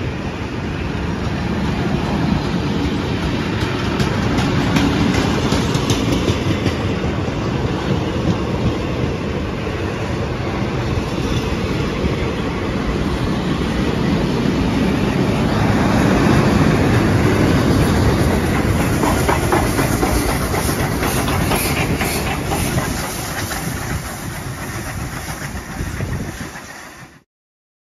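Heritage steam-hauled passenger train rolling past with a steady rumble, its steel wheels clicking over the rail joints. Steam is hissing from the K-class steam locomotives as they pass. The sound cuts off suddenly near the end.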